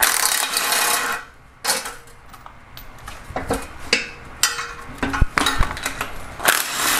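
Impact wrench hammering on rusted exhaust manifold nuts in two bursts, one at the start and one near the end, breaking them loose. Between the bursts there are sharp metallic clicks and clinks from the socket and the loosened nuts.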